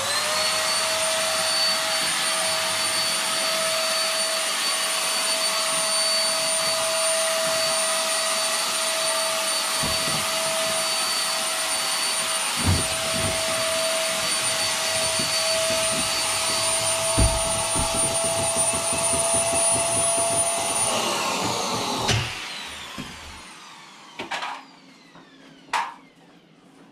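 Electric air pump running steadily with a high whine, inflating an inflatable PVC boat seat. About 21 seconds in it is switched off and winds down with a falling pitch, followed by a few light knocks.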